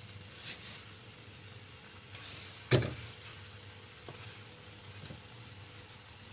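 Peanuts and cooking sugar being stirred in a pan with a wooden spatula: soft scraping and rattling of the nuts over a faint sizzle, with one sharp knock of the spatula against the pan near the middle and a couple of lighter ticks after it. The sugar coating is still cooking and has not yet browned.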